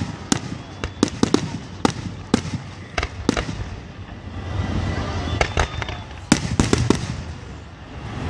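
Fireworks exploding in the air: sharp cracks and bangs in quick clusters, some in rapid crackling runs, over a low rumble of booms.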